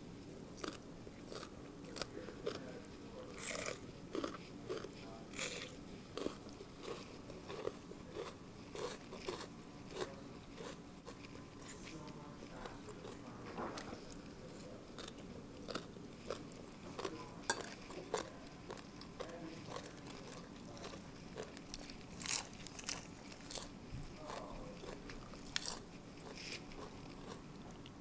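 A person chewing and crunching mouthfuls of Thai papaya salad with rice noodles, in many short, irregular crisp bites.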